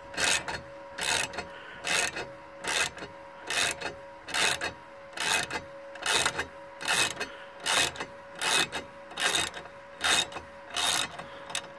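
Gear puller's forcing screw being tightened stroke by stroke to draw an interference-fit bearing off a Knott drum-brake stub axle, a short noisy burst with each stroke about every 0.8 seconds, about fourteen in all.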